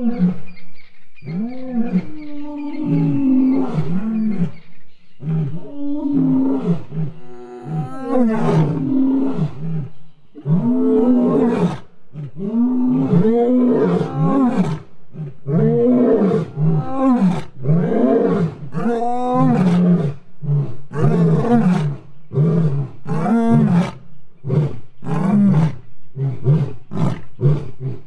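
African lions roaring a territorial bout: a long run of low, arched grunting roars, each rising then falling in pitch, repeated about once a second and growing louder about ten seconds in. The roaring answers a neighbouring pride's roars, claiming territory.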